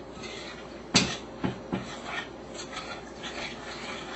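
A utensil stirring a wet, thick food mix in a bowl. There is a sharp clink against the bowl about a second in and two lighter knocks after it, then soft scraping and rubbing.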